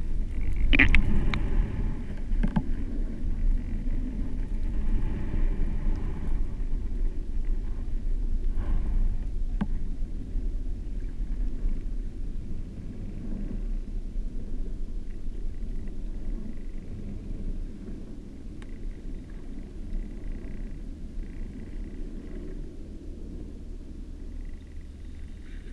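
Muffled low rumble of shallow-water surge recorded underwater through a GoPro's waterproof housing, with a few sharp clicks in the first seconds. It grows gradually quieter through the second half.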